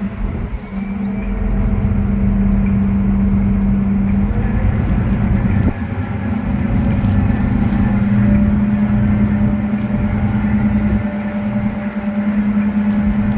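Tour boat's engine running with a steady drone, over a low, uneven rumble.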